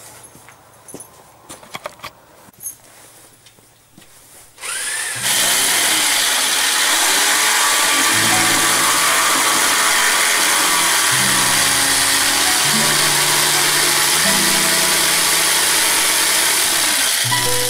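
A few knocks as a wooden board is set and clamped, then an electric jigsaw starts about five seconds in and cuts through the board steadily, stopping just before the end.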